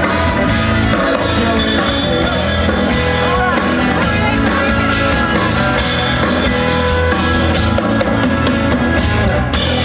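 Live band playing amplified rock music with electric guitars, bass and a drum kit, heard from within the audience.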